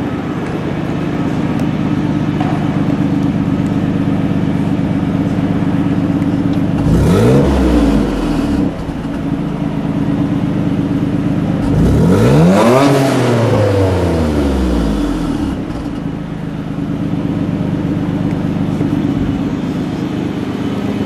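1989 Nissan Skyline GT-R's RB26 twin-turbo straight-six idling steadily, revved twice: a short rev about seven seconds in and a longer one about twelve seconds in, each rising in pitch and falling back to idle.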